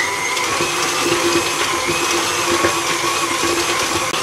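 KitchenAid Classic stand mixer running steadily on a low speed, its dough hook kneading a stiff bagel dough, with an even motor whine.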